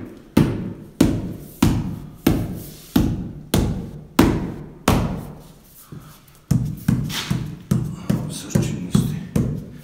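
Fists pounding on a Sonoplat Combi soundproofing panel held against a concrete wall to press it into place, giving dull knocks with a short echo, about one and a half blows a second. After a brief pause past the middle, the blows quicken to about three a second.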